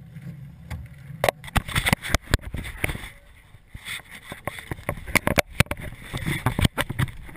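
Irregular sharp knocks and clicks as hands grab and fumble an action camera clamped on an Optimist sailing dinghy. A low rumble comes first, and the knocking starts about a second in.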